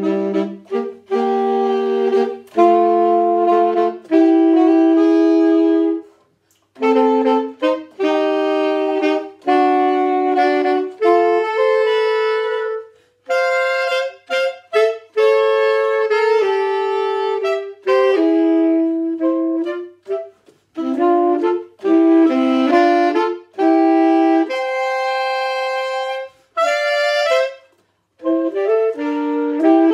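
Alto and tenor saxophone playing a duet, two melodic lines sounding together in held notes. The phrases break briefly for breaths about six seconds in, about thirteen seconds in and near the end.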